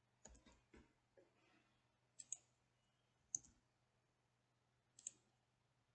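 Faint computer mouse clicks, a few single clicks and quick double clicks spaced a second or more apart, over a faint steady low hum.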